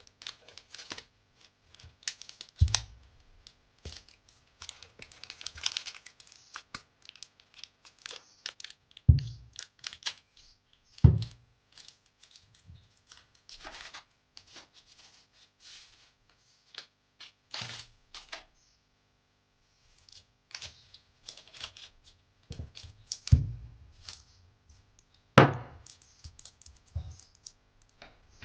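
Adhesive tape being pulled and torn while it is wrapped around a sneaker to hold a glued sole repair together, with irregular rustles, clicks and several sharp knocks as the shoe is handled.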